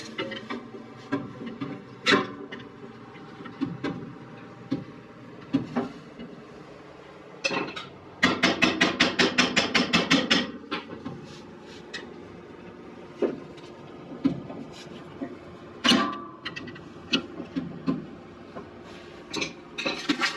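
Hand tools clinking and knocking against the sawmill's metal pulley and belt guard as a new belt is worked on, with scattered single knocks and a quick rattling run of clicks lasting about two seconds near the middle.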